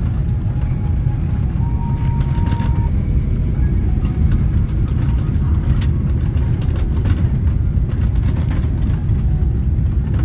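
Airliner cabin noise on the landing rollout: a loud, steady low rumble of the engines and the wheels running down the runway, heard from inside the cabin. A brief thin tone sounds about two seconds in.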